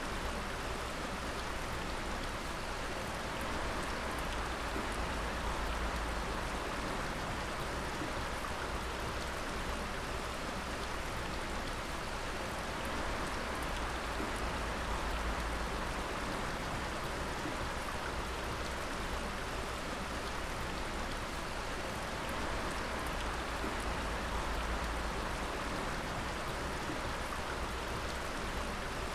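Water dripping steadily in a dense, even patter, with no music.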